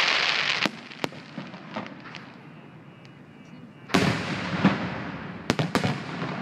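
Fireworks grand finale: a loud crackling burst fades over the first half-second, followed by a few sharp bangs and crackles. After a lull of about a second and a half, a fresh volley of loud booms and sharp cracks starts about four seconds in.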